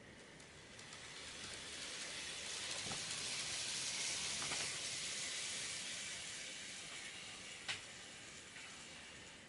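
N gauge model of an Osaka Municipal 60 series train pulling away: a faint hissing whir of its motor and wheels on the track that swells over the first few seconds, then fades as it runs off. A sharp click sounds near the end.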